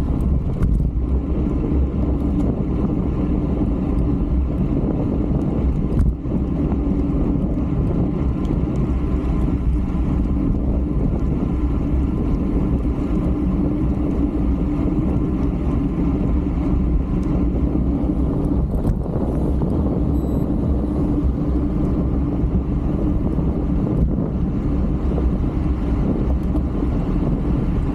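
Steady wind rushing over the microphone of a camera riding on a racing bicycle at speed.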